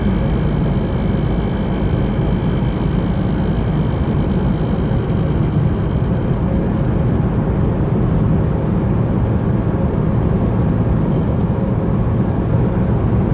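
Chevrolet S10 pickup driving at speed, with steady road and drivetrain noise and a low growl ("ronco"), which the driver suspects comes from a worn differential; the growl is weaker in left-hand curves and worse in right-hand ones.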